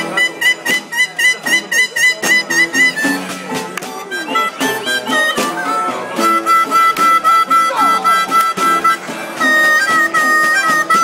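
Harmonica played with both hands cupped around it: quick repeated notes pulsing about four times a second, then long held notes from about halfway through.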